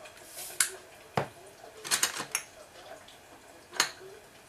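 Sharp clicks and clinks of a metal spoon and kitchen containers being handled on a tabletop: a few separate knocks, with a quick run of clicks about two seconds in.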